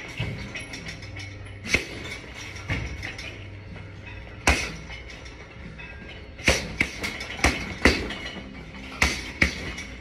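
Gloved punches landing on a hanging heavy punching bag: a few single blows spaced a second or two apart, then a quick flurry of about five about six seconds in, and two more near the end.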